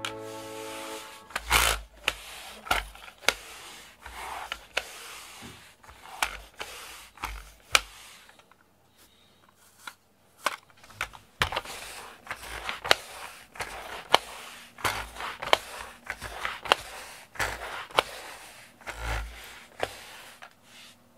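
Reusable pet hair roller with a red fabric drum rolled in quick strokes over a foam floor mat, giving scraping swishes broken by sharp clicks. It stops for about a second and a half a little before the middle, then starts again.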